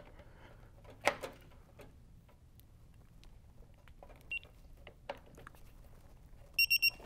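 Torque wrench beeping a quick run of short, high-pitched beeps near the end, signalling that the 3/8-inch flare nut has reached its 31 ft-lb setting. Before it come quiet handling sounds of the wrenches on the brass fitting, with a sharp knock about a second in and a single short faint beep a little past halfway.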